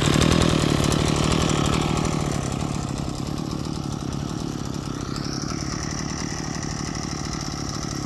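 Kawasaki TH34 brush cutter's 34 cc two-stroke engine running steadily and smoothly, getting a little quieter about two seconds in.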